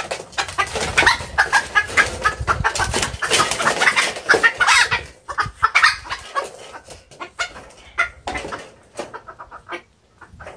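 Chickens clucking as they are handled and let into a coop: a dense, busy spell of calls in the first five seconds that thins out and dies down near the end.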